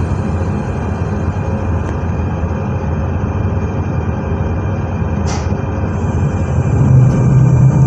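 SNCF Z2N double-deck electric multiple unit Z 20891 running: a steady low rumble with several steady tones, getting louder near the end, and a brief click about five seconds in.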